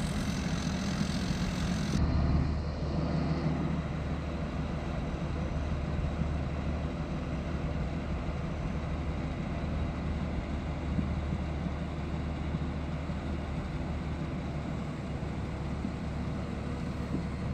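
Diesel engine of a large rice combine harvester running steadily, a low drone; the higher hiss drops away abruptly about two seconds in.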